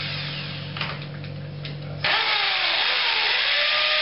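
Corded electric drill starting up about halfway in and drilling into a wall: a loud motor whine whose pitch dips and wavers as the bit bites, then settles steady. Before it, a low hum and a light knock.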